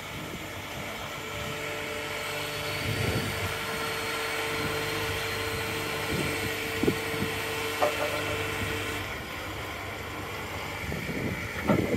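Truck-mounted hydraulic crane at work: the lorry's engine running with a steady whine from the crane's hydraulics, which stops about nine seconds in. There are a few light knocks.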